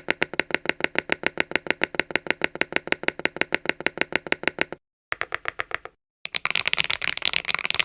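Mechanical keyboard with AKKO Lavender Purple tactile switches: one key pressed over and over in an even rhythm, about eight clacks a second, for nearly five seconds. After a brief pause comes a shorter run, then fast, dense typing near the end.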